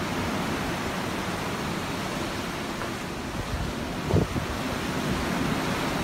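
Open-water ocean waves making a steady rushing surf noise, with a brief low thump about four seconds in.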